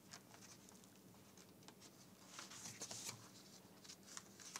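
Faint rustling and light taps of paper sheets being leafed through at a lectern, over a low steady room hum.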